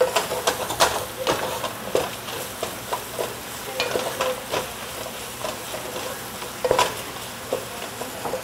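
Onions, ginger-garlic paste and whole spices frying in oil in a pan, sizzling, while being stirred: irregular scrapes and clicks of the stirring utensil against the pan bottom.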